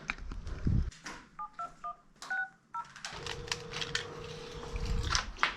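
Mobile phone keypad touch-tones as a number is dialed: several short two-note beeps in quick succession. About three seconds in, a steady tone starts and lasts about two seconds, heard through the phone's speaker.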